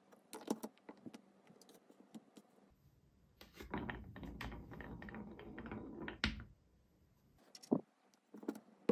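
Marble rolling along a wooden wave-shaped marble run track, a rattling rumble full of small clicks for about three seconds that ends in a sharper knock. A couple of short wooden knocks follow near the end.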